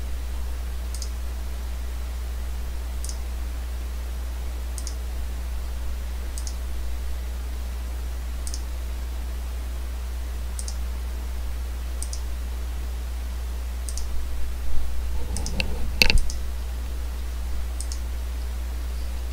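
Computer mouse button clicking every second or two while paging through photos, over a steady low hum. A louder knock and rattle comes about fifteen seconds in.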